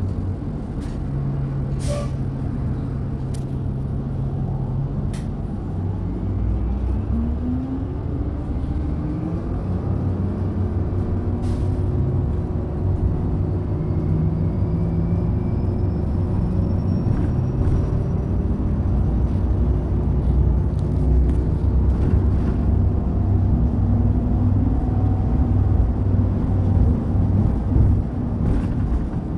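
Orion VII NG hybrid transit bus running: the Cummins ISB diesel's low rumble under the whine of the BAE Systems HybriDrive electric drive, which rises steadily in pitch a few seconds in as the bus gathers speed. A fainter high whine climbs slowly later on, with a few sharp clicks and knocks.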